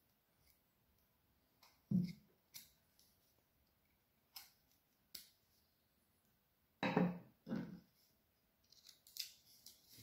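Small hand gouge paring into a fallen branch: a handful of short, separate cuts, the loudest pair about seven seconds in, and a quick run of smaller ones near the end.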